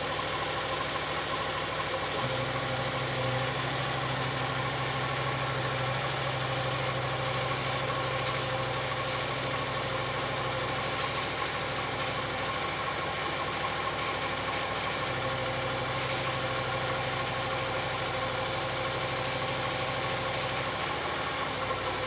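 Loncin engine of a homemade skid steer idling steadily while the loader's hydraulics are tried at idle speed, raising the loader arms. A deeper steady hum joins about two seconds in, drops out near the middle, and comes back for several seconds later on.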